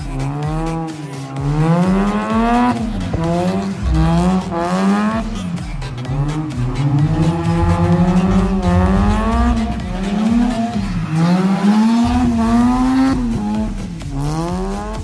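Mazda RX-7 FC's rotary engine revving up and down as the car drifts, its pitch rising and falling every second or two, with the rear tires squealing as they slide.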